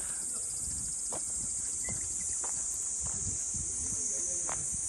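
Steady high-pitched chorus of summer insects, with a few soft footsteps on a gravel path.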